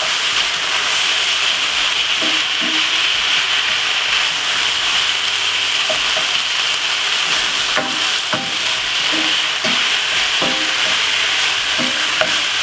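Minced beef with onions and spring onion sizzling steadily in a hot frying pan as it browns, stirred with a wooden spoon that knocks and scrapes against the pan now and then.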